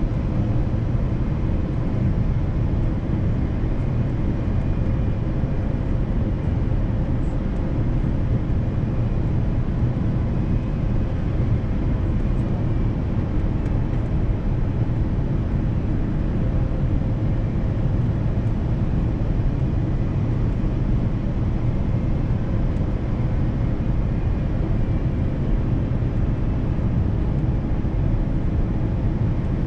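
Steady low rumble of airflow and engines inside the cabin of an Airbus A350-900 on approach, with a faint steady hum.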